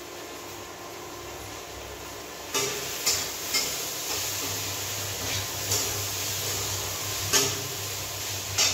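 Metal spatula scraping and knocking against an aluminium kadhai as cooked soya chunks are stirred: several short, sharp scrapes from about two and a half seconds in, over a steady hiss.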